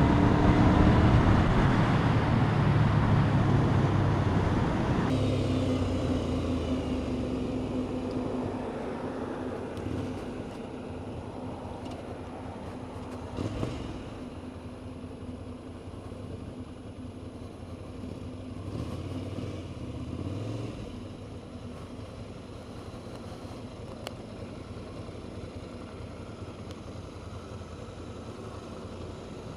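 Road vehicle engine passing and fading away, its pitch falling. A low steady engine hum follows, with distant traffic.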